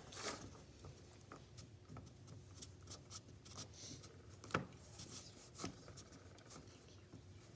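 Faint rustling and rubbing of hands working a modelling-clay octopus on a sheet of paper on a tabletop, with scattered soft ticks, a sharp tap a little past halfway and a softer one about a second later.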